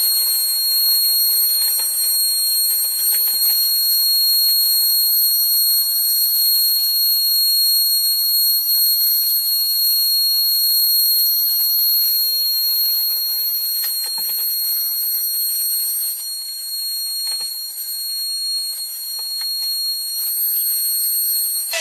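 CNC router spindle whining steadily at high speed as it raster-cuts a 3D face, a high constant tone over a faint cutting hiss with a few light clicks.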